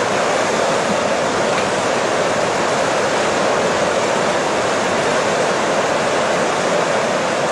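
Steady rushing of a shallow, stony river's water, with no distinct engine sound.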